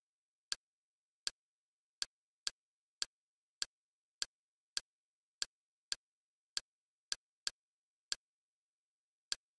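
Short, sharp user-interface clicks from the Kodi media center, one for each step as the highlight moves down a menu list. There are about sixteen clicks at uneven intervals of roughly half a second, with dead silence between them.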